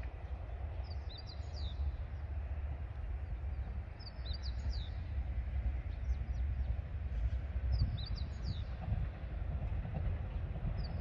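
A small songbird repeating a short phrase of quick high notes every three to four seconds, over a steady low rumble.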